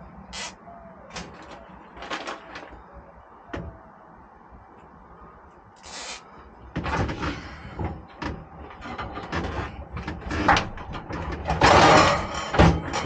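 Scattered clicks and knocks of a person handling tools and parts in a pickup bed under a truck cap. After about seven seconds they turn into louder, busier knocking and rustling as the person moves in close, loudest near the end.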